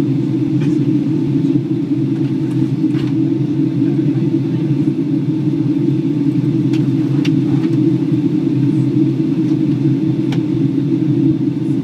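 Steady cabin rumble inside a Boeing 757-200 airliner on descent, engine and airflow noise at an even level, with a few faint ticks from the cabin.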